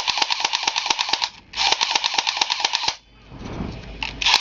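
Electric airsoft Glock pistol with a metal gearbox firing on full auto: two rapid bursts of about a second and a half each, roughly a dozen or more clicking shots a second, then a short burst near the end.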